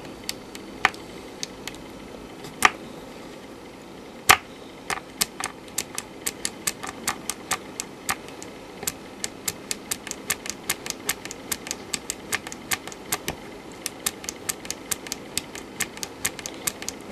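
Small toggle switch being flicked by hand, clicking: a few separate clicks at first, then a quick run of clicks, several a second. Each flick steps the clock of a Z80 CPU by hand, single-stepping it.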